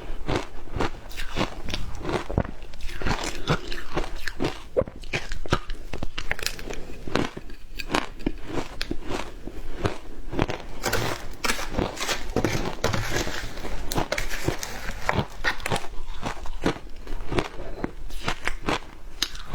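Matcha ice being bitten and chewed: a continuous run of sharp, crackling crunches, several a second.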